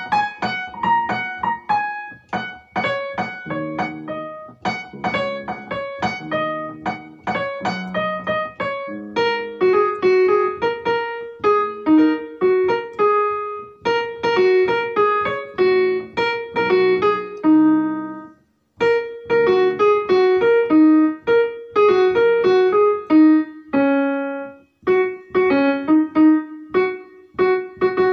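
Background solo piano music: a steady run of quick notes, with two brief pauses in the second half.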